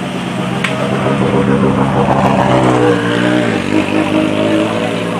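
Volkswagen Polo GTI R5 rally car's turbocharged four-cylinder engine running at low revs as the car rolls past close by. It grows louder, then its note drops about three and a half seconds in as the car pulls away.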